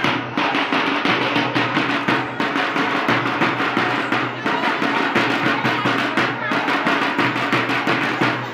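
Music with steady, fast drumming: an instrumental stretch without singing in a Telugu Muharram folk song.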